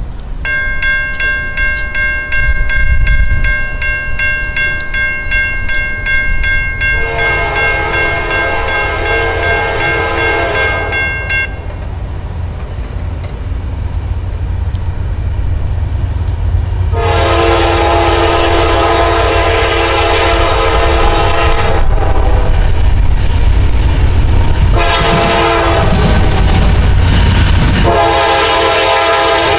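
Norfolk Southern freight train approaching, led by a GE AC44C6M locomotive sounding its air horn in four long blasts, with a low diesel rumble that grows louder as the train nears. A bell rings rapidly for the first eleven seconds and stops as the first horn blast ends.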